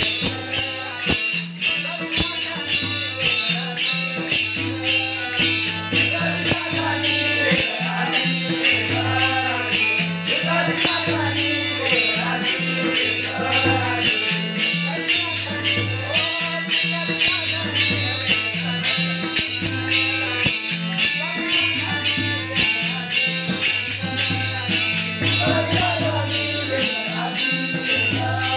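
Warkari bhajan music: a man singing a wavering melody over hand cymbals jingling in a fast, steady rhythm, repeating low drum strokes and a steady held note underneath.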